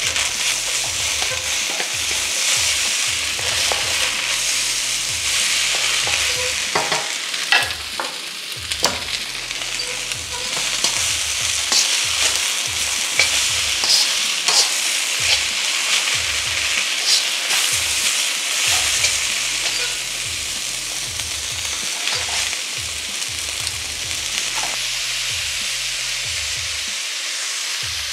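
Rice noodles, meat, prawns and bean sprouts sizzling in a hot wok as they are stir-fried, with a steady hiss and sharp clinks of the spatula against the wok now and then.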